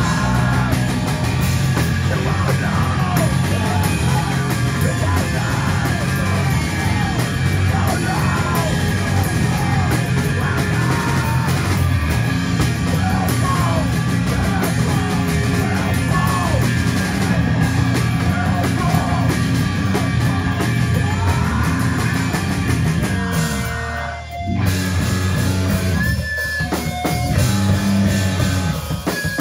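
Live rock band playing loud, with electric guitar, bass, drums and sung and shouted vocals. The music drops out for a moment near the end, then the band comes back in.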